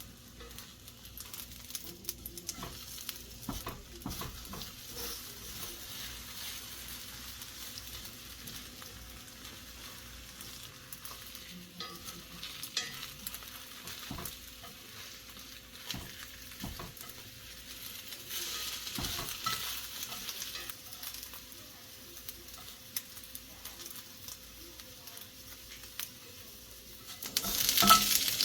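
Food sizzling in a frying pan while being stirred, with small scraping clicks of the utensil against the pan. The sizzle grows louder about a second before the end.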